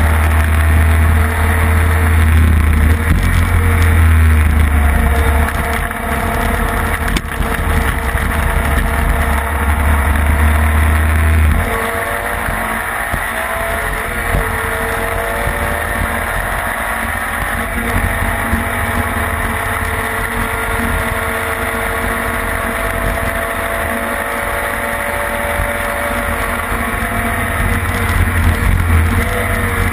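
Classic racing sidecar outfit's engine running hard at speed, heard onboard with heavy wind rumble on the microphone. About twelve seconds in the wind rumble eases and the engine note climbs, drops at a gear change, then climbs again; the wind rumble builds once more near the end.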